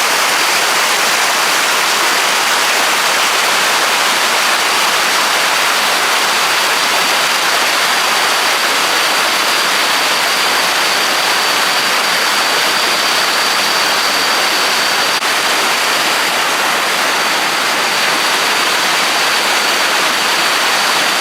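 Waterfall with a high volume of rainy-season water falling down rocks: a steady, loud rushing noise. A thin, steady high tone sits over the rush.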